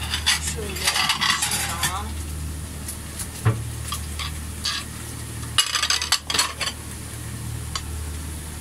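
Fork beating eggs in a ceramic bowl, tapping and scraping against its sides, with clinks of a glass plate being set down among other dishes.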